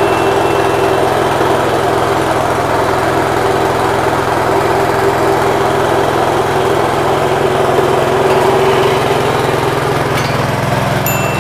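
Small petrol engine running steadily under load, driving a chili grinding mill that is milling fresh chilies into paste.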